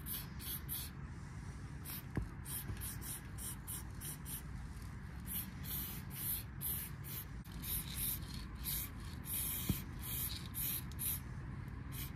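Aerosol spray paint can spraying in many short bursts of hiss, with a few longer sprays, as lines and dots are painted. Two sharp clicks stand out, about two seconds in and near the end, over a steady low background rumble.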